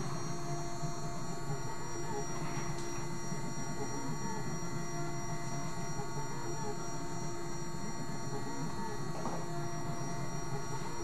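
Strizh-4 CNC jewellery mill running a cutting job: a steady machine hum and whine from the spindle, with fainter tones from the axis motors that waver and come and go as the tool moves through the green wax blank.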